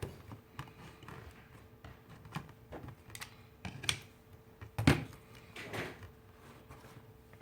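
Small tools and parts handled on a workbench: scattered light clicks and knocks, the loudest a sharp knock about five seconds in, over a faint steady hum.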